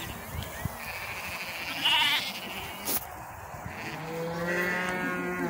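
Sheep bleating: a short, wavering bleat about two seconds in, then a longer, lower bleat held near the end.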